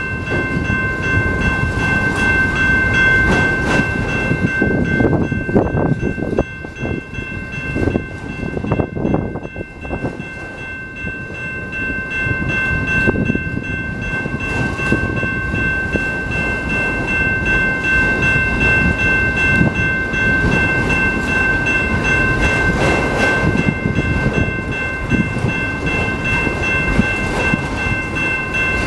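Freight train of autorack cars rolling past close by: a heavy rumble of steel wheels on rail with frequent knocks and clatter. A steady high whine runs over it throughout, and the rumble eases for a few seconds in the middle before building again.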